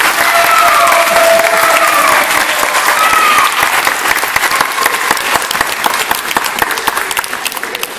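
Audience applause: many people clapping, dying away toward the end.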